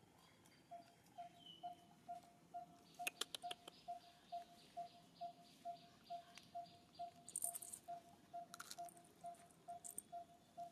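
Faint outdoor ambience: a soft single note repeats evenly about twice a second, with a quick cluster of clicks about three seconds in and two short high chirps near the end.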